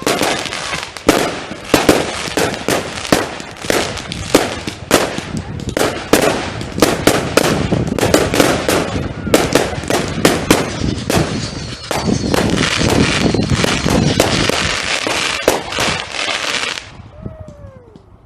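Fireworks going off: a rapid, irregular run of sharp bangs and crackles that builds to an almost continuous barrage, then dies away near the end.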